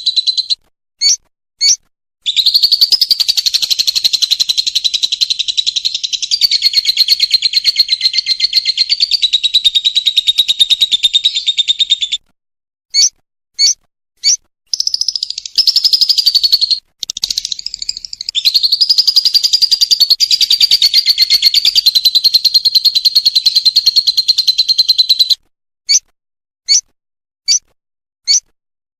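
Lovebird ngekek: a long, rapid, high chattering trill held for about ten seconds, a few short chirps, then another trill of about ten seconds, followed by more short single chirps near the end.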